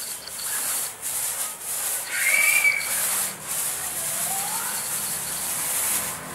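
Paint roller on an extension pole rolling waterproof coating paint up and down a plastered wall: a steady sticky hiss through each stroke, with the roller running low on paint. A short squeak comes about two seconds in, and a rising squeak follows about a second and a half later.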